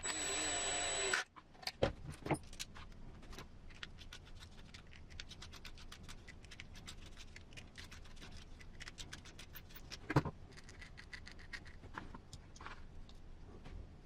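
Small plastic and metal RC transmission parts clicking and tapping as they are handled and fitted into the gearbox housing, with a louder knock near the end. A brief steady machine whir opens it and cuts off about a second in.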